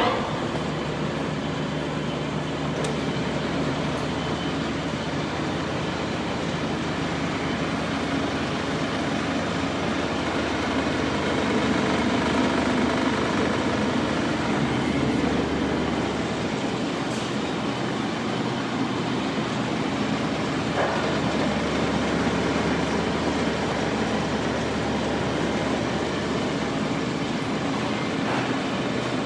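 IWM double drum sander running steadily: a low motor hum under an even mechanical rush, rising slightly for a few seconds in the middle.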